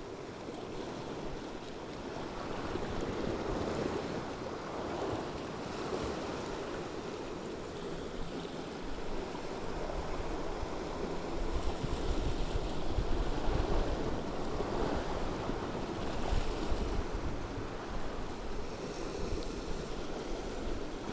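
Sea waves washing against the shore, swelling and ebbing every few seconds, with wind buffeting the microphone as a low rumble from about halfway through.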